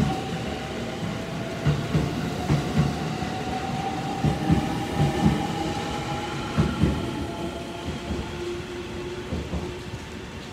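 JR Central 313 series electric train pulling out: its inverter-driven traction motors whine in steady tones that rise slowly in pitch, over the clack of wheels passing rail joints, often in pairs. It fades over the last few seconds as the last car moves away.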